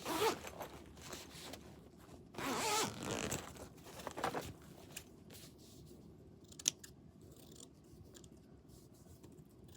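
Scissors trimming fabric: a few rasping snips in the first half, then a single sharp click.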